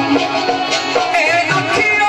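Pothwari folk music: drum beats over a steady held drone, with a singing voice coming in about a second in.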